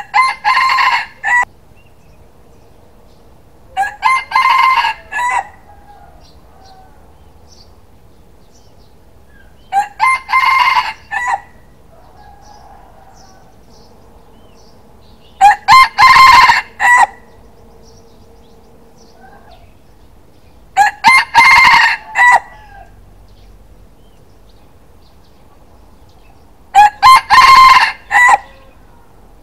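Rooster crowing six times, each crow lasting about a second and a half, repeated every five to six seconds.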